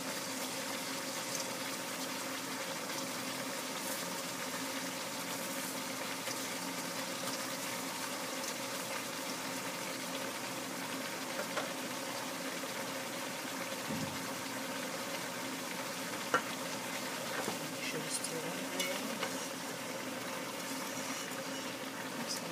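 Cabbage and carrots sizzling as they sauté in a wide pan, stirred and turned with a wooden spoon, with a few short clicks of the spoon against the pan. A low steady hum runs beneath the sizzle.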